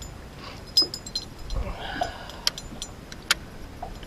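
Scattered sharp clicks and clinks of fishing tackle and boat gear, a handful over a few seconds, the loudest about a second in.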